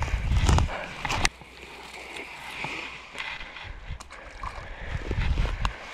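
Low rumble of wind buffeting the microphone for the first second, then quieter rustling and scattered light clicks of handling. The rumble returns near the end.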